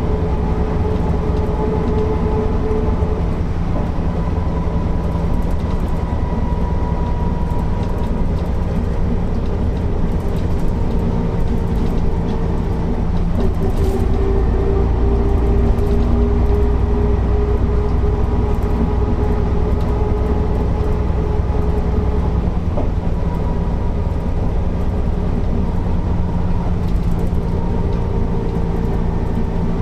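Mercedes-Benz O408 city bus under way: a steady diesel engine drone with a whine that drifts slightly in pitch, a little louder around the middle.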